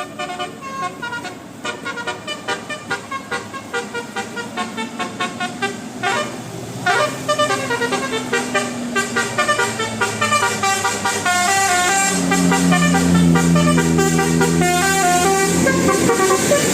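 Bus 'telolet' multi-tone horn playing a fast run of short, jingling notes, several a second. About twelve seconds in, a long low horn tone starts and is held under the notes.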